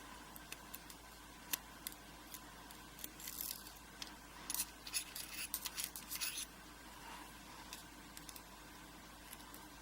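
Small metal clicks and scratches of a tool picking the pin springs out of a Mul-T-Lock padlock cylinder. Scattered faint ticks, with a busier run of quick scratchy clicks from about three to six and a half seconds in.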